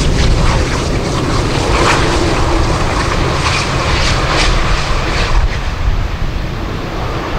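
Boeing 747-8 freighter with four GEnx engines rolling out just after touchdown, its engines and airflow making a loud, steady rumble with a few louder swells.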